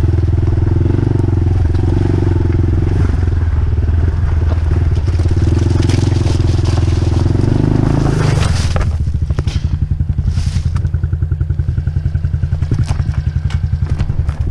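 Dirt bike engine running at steady throttle, then about two-thirds of the way through easing off to a lower, lumpy, evenly pulsing idle, with a few scrapes and crackles. The engine sound falls away right at the end.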